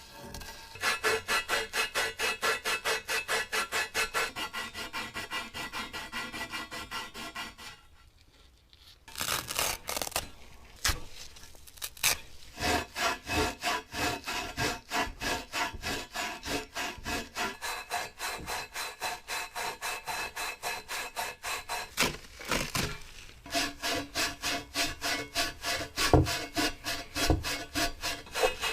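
A hand tool worked back and forth in steady rhythmic strokes, about four a second. The strokes pause briefly about eight seconds in, then resume, with a few sharp knocks among them.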